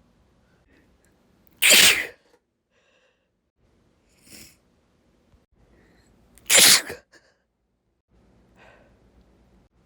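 A woman sneezing twice, about five seconds apart: two loud, sudden sneezes, with a much softer breathy sound between them.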